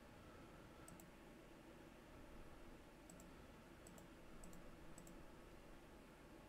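Faint computer mouse clicks over quiet room tone: about five quick double clicks at uneven intervals, as nodes are placed in a drawing program.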